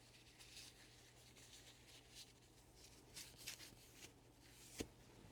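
Near silence with faint, brief scrapes and rubs of parts being handled, and a small sharp click near the end.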